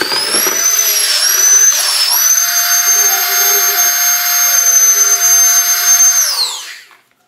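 Electric vacuum drawing the air out of a vacuum-seal storage bag: a loud motor whine that climbs in pitch as it spins up, wavers as the bag draws down, then holds steady. It winds down and stops about six and a half seconds in.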